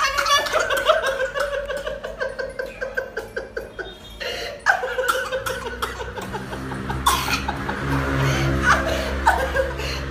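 Hearty laughter, with background music running underneath.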